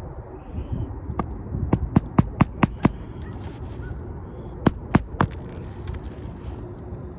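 Hammer striking roofing nails into a replacement shingle: a quick run of about six sharp knocks, then three more a couple of seconds later.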